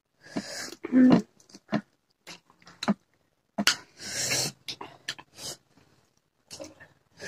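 Close-up eating sounds: chewing and crunching on raw cucumber, with wet mouth smacks in short separate bursts and a brief voiced 'mm' about a second in.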